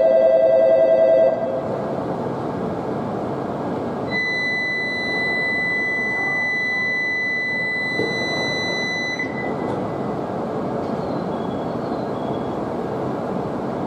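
An electronic shinkansen departure bell rings in a warbling two-tone pattern and cuts off about a second in. A few seconds later a single steady high-pitched warning tone sounds for about five seconds as the train's doors close, over a steady background of station and train noise.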